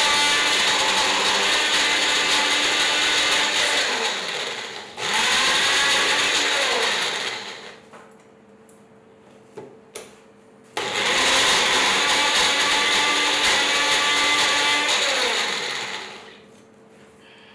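Mixer grinder motor running at full speed with a high whine, in runs: it cuts out briefly about five seconds in, starts again and winds down with a falling whine near eight seconds. Two sharp clicks come in the pause, then the motor starts again about eleven seconds in and winds down near the end.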